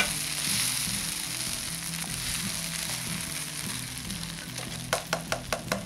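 Food sizzling in hot oil in a wok on a gas stove as it is stirred, the hiss slowly fading. A quick run of about five metal spoon taps on the pan comes near the end, over soft background music.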